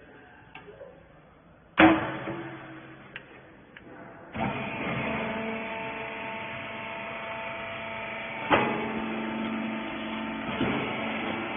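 A loud metal clang that rings on, then a couple of light clicks. About four seconds in, the rag baler's motor starts and runs with a steady hum, with another clank part-way through.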